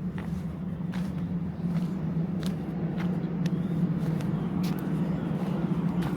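Footsteps at a steady walking pace, a light step about every two-thirds of a second, over a steady low hum.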